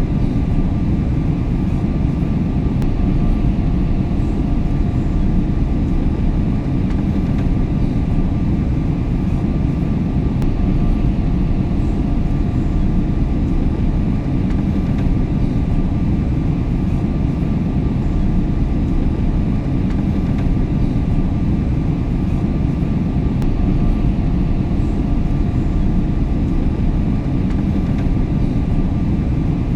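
Airliner cabin noise in flight: a steady, deep rumble of engines and airflow, with a faint steady hum on top.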